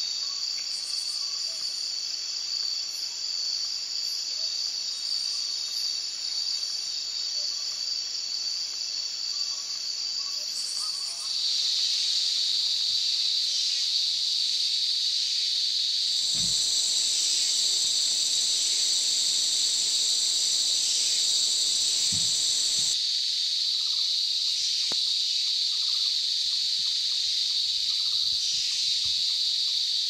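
Rainforest insect chorus: a dense, steady high-pitched shrilling of many insects holding constant pitches. About eleven seconds in it becomes louder and fuller.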